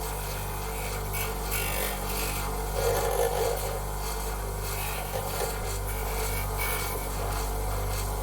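Abrasive rubbing strokes on a wooden pool cue, irregular and uneven, loudest about three seconds in, over a steady low hum.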